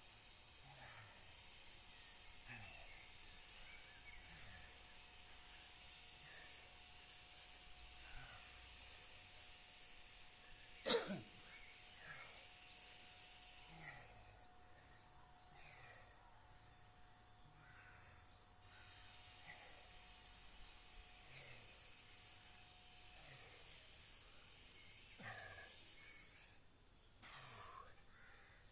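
One sharp sneeze about 11 seconds in, over faint outdoor ambience with a steady high, rapid chirping throughout.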